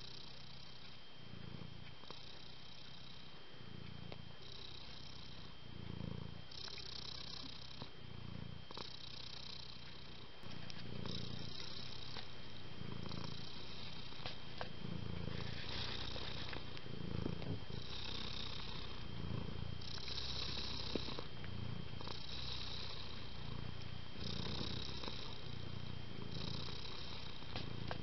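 A domestic cat purring steadily, the purr alternating between a low rumbling phase and a breathier phase with each breath in and out, about once every two seconds. It gets louder about ten seconds in.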